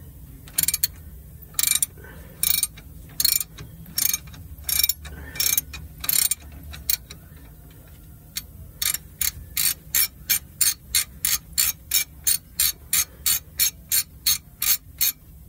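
Hand socket ratchet clicking on each back-swing while unscrewing the oil check plug on a truck's rear differential. The first strokes are slower and uneven, then, as the loosened plug comes up, a quick steady run of about three clicks a second.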